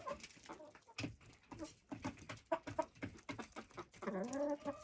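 Chickens clucking softly at close range: short low clucks and small clicks, then one longer drawn-out call near the end.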